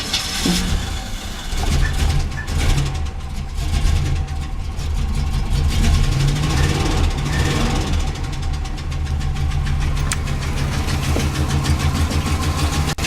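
Oldsmobile 350 Rocket V8 running with a fast, steady ticking from the top of the engine, which settles into a steadier run about two seconds in. The owner takes the tick for a valvetrain noise from rockers that are loose or too tight after the engine sat too long.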